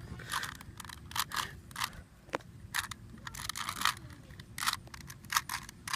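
Rubik's Cube layers being turned quickly by hand: an irregular run of short plastic clicks and scrapes, several a second.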